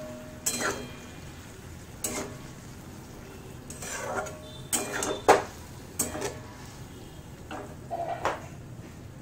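Flat metal spatula scraping and knocking against a metal kadai as a curry is stirred, in a string of irregular strokes, the sharpest about five seconds in.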